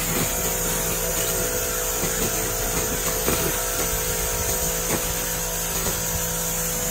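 Continuous fiber laser cleaning machine working over a 1958 Cadillac 365 V8 cast-iron engine block: a steady machine hum and hiss with occasional faint crackles as the beam burns oil and grime off the metal.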